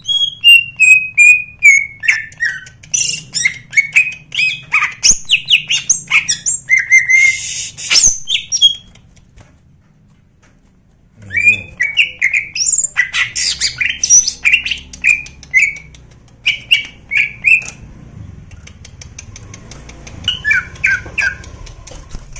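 Caged greater green leafbird (cucak ijo) singing loud, rapid, varied phrases of chirps, slurred whistles and harsh notes. It breaks off for about two seconds midway, then resumes, with softer, sparser phrases near the end.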